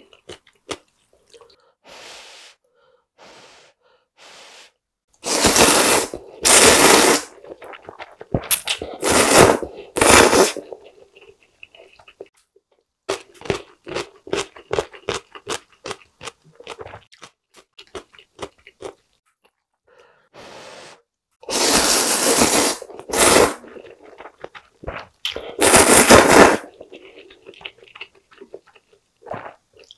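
Close-up eating of ramyeon: several loud noodle slurps lasting a second or two each, in two groups, separated by stretches of chewing with rapid wet mouth clicks.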